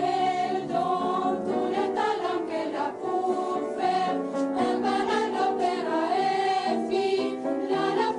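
A choir singing together in several voices, holding long notes.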